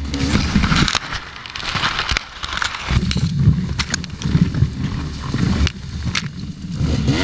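Dry reeds and brush crackling and scraping against the helmet camera in irregular bursts, over an uneven low rumble.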